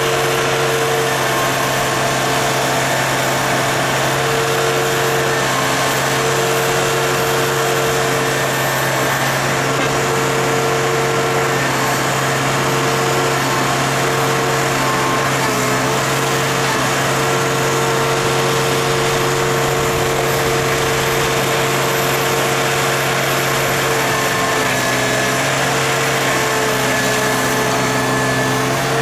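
Engine and hydraulic system of a scrap-handling machine with a grapple, running with a steady hum and an even mechanical whirr as the grapple works the sheet-metal scrap.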